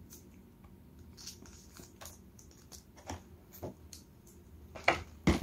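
Faint scattered clicks and light rustles of hands handling small plastic toy packaging and parts, then two louder sharp clacks near the end.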